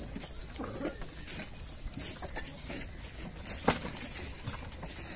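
Scattered knocks and clinks over a steady low rumble, with one sharp knock about three and a half seconds in.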